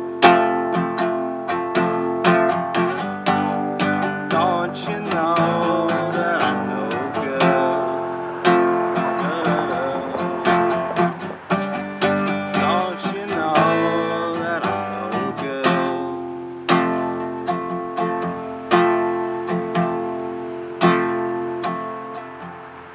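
Steel-string acoustic guitar strummed in slow chords, each strum ringing on into the next. Near the end the strumming thins out and the last chord dies away.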